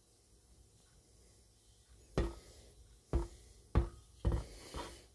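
Metal exhaust pipes knocking: about five sharp clanks roughly half a second apart in the second half, each ringing briefly.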